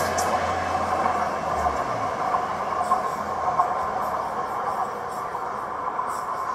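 Oslo metro MX3000 train pulling away along the track, a steady wheel-on-rail running noise that gradually fades as it recedes. A low hum drops out about two seconds in.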